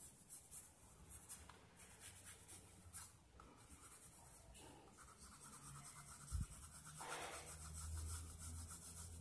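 Soft B graphite pencil shading on drawing paper: faint, quick scratchy back-and-forth strokes. A low hum comes in near the end.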